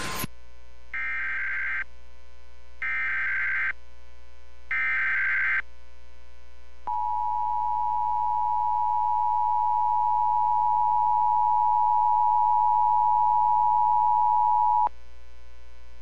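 Emergency Alert System test over AM radio: three short bursts of SAME header data tones about a second apart, then the two-tone EAS attention signal, one steady high tone held for about eight seconds before cutting off suddenly. A low hum runs underneath.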